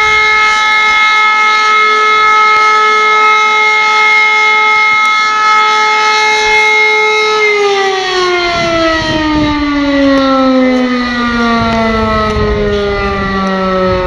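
Civil defence siren sounding one steady tone, then winding down, its pitch falling slowly through the second half.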